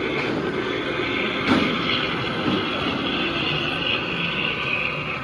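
1/14 scale radio-controlled semi-truck running slowly across a concrete floor, with a steady high whine and a single knock about one and a half seconds in.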